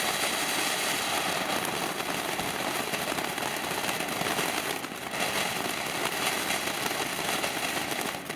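A consumer firework burning with a steady, continuous hiss, dipping briefly about five seconds in.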